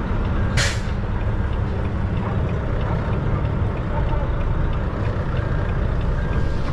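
Semi truck's diesel engine running with a steady low rumble, and a short, sharp hiss of air from the air brakes about half a second in.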